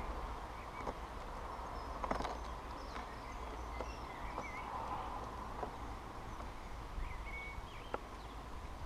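Small garden birds giving short high chirps and twitters at a bird table, with scattered sharp taps close to the microphone over steady outdoor background noise.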